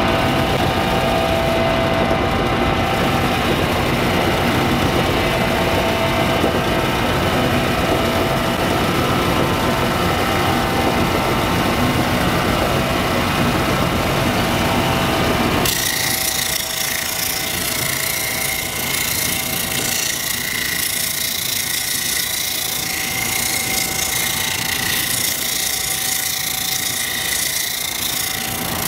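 Homemade wet lapidary polisher running: an electric motor spinning a 100-grit sanding wheel with the water feed on. About halfway through, a chrysocolla stone is pressed against the wheel and the sound changes suddenly to a higher, hissing grind.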